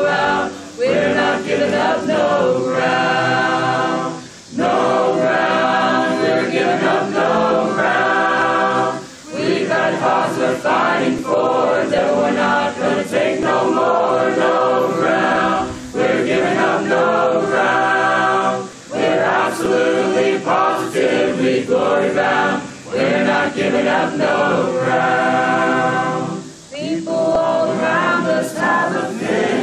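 Mixed choir of young men and women singing a gospel song a cappella in harmony, in long phrases with brief pauses for breath between them.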